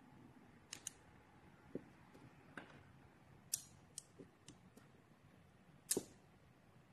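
Magnet rings and 17 mm steel balls clicking as they are snapped together and handled, about nine sharp metallic clicks at uneven intervals. The loudest is a double click near the end.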